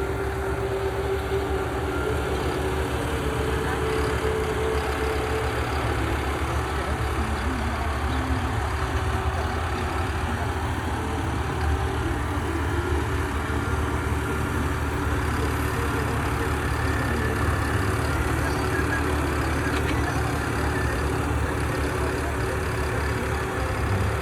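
4x4 tractor's CRDI diesel engine running steadily with a deep, even throb.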